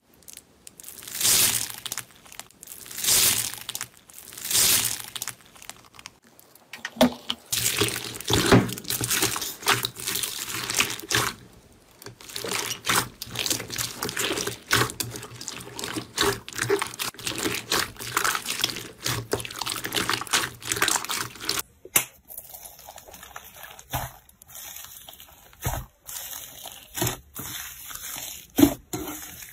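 Close-miked slime being squished and pressed by hand: wet squelching and crackling. Three long squishes come first, then a dense run of crackling pops, and after a cut a little past two-thirds in, sparser clicks and pops from another clip.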